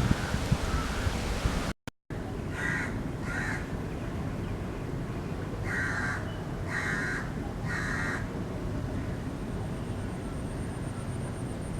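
A crow cawing: five short, harsh caws in two groups, two and then three, over a steady low background hiss. A steadier hiss fills the first two seconds and cuts out briefly just before the calls begin.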